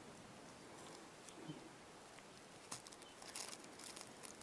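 Near silence, with a few faint clicks and light rustles from hands handling fly-tying materials at the vise, mostly in the second half.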